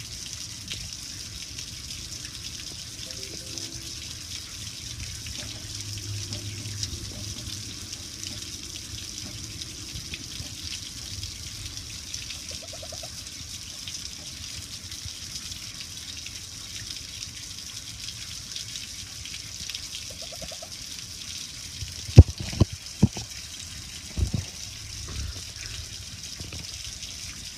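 Water from a garden hose splashing steadily over a gas grill's lid and pattering onto concrete, an even hiss. Near the end, a handful of sharp knocks stand out above the water.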